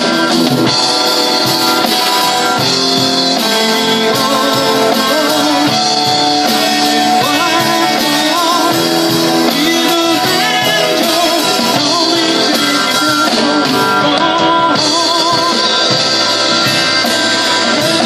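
Live rock band playing: electric guitars and drum kit, with a male lead vocal.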